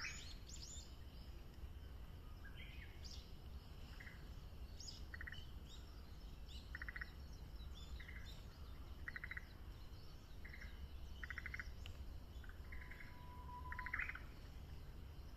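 Birdsong: a run of short trilled notes about once a second, growing louder, then a Japanese bush warbler's long held whistle and quick flourish near the end (its 'hoo-hokekyo' song), with other small birds chirping.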